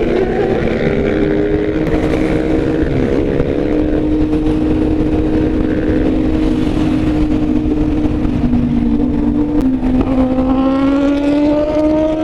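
Kawasaki Z800 inline-four engine running at cruising speed under a steady rush of wind noise. Its pitch sags slightly, then climbs as it accelerates near the end.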